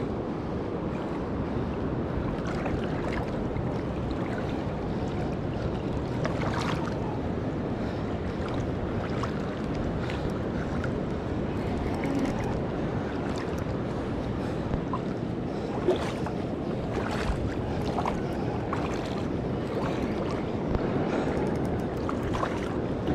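Fast river current rushing past close by, a steady wash with wind on the microphone. A few light clicks are heard, spread out through the middle and later part.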